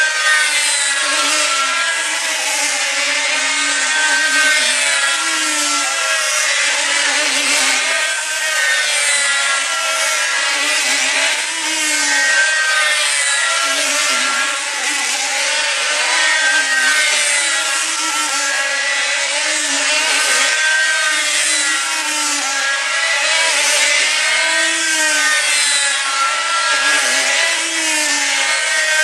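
Several small diesel engines on control-line combat model aircraft running together at high revs in a high-pitched, continuous whine. Their pitch wavers up and down in a repeating cycle as the models circle.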